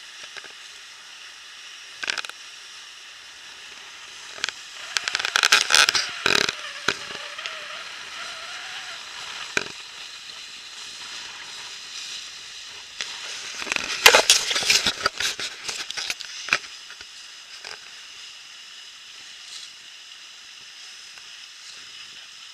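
Steady hiss of water rushing past a sailboat under way, with two louder, rough spells of splashing noise, about five and fourteen seconds in, and a few scattered clicks.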